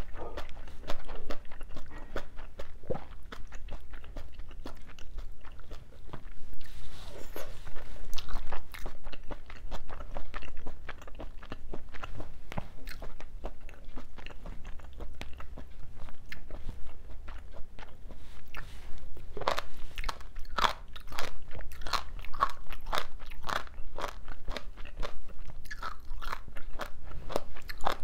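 A person chewing mouthfuls of crunchy soybean sprouts and seafood from a spicy braised seafood dish, with many crisp crunches that come thicker and louder in the last third.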